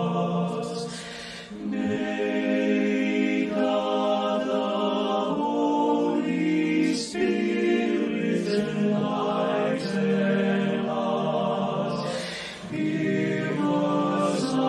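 Male choir singing unaccompanied in harmony, holding long chords phrase by phrase, with brief breaks between phrases about a second and a half in and again near the end.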